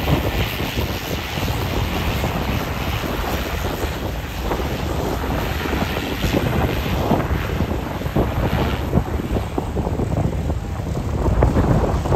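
A single-engine propeller plane's engine and propeller running as it rolls along the runway, with heavy wind buffeting the microphone.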